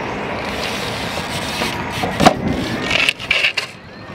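BMX bike rolling over rough asphalt, with one sharp knock a little past two seconds in and a brief scrape about a second later.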